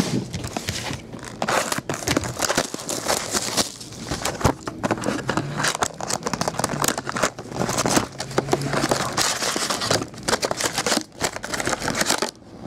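Plastic wrap crinkling and tearing off a cardboard trading-card box, then foil card packs crinkling as they are pulled out of the box: a dense run of irregular crackles with a few short pauses.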